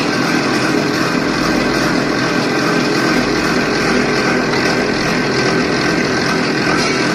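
P15 wire stripping machine running steadily as a coil of scrap wire is fed through and stripped, a constant machine drone with a few steady tones.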